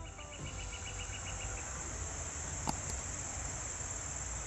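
Insect chorus in a summer forest: a steady high-pitched buzz throughout, with a faster pulsed chirping for the first second and a half and one sharp click near the middle.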